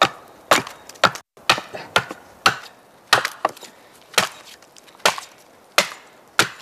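A wedge being hammered into a log to split it along the grain for ski boards: about a dozen sharp wooden knocks, roughly two a second, unevenly spaced.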